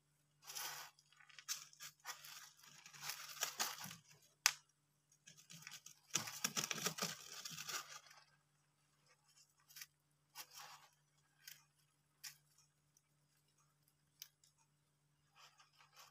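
Scratchy rustling of small hamsters moving and working at wood-shaving bedding, in irregular bursts: two longer spells in the first half with a sharp click between them, then fainter scattered scratches.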